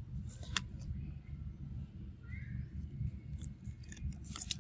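A macaque biting and chewing raw cucumber, with crisp crunches near the end, over a steady low rumble. A short rising chirp comes about halfway.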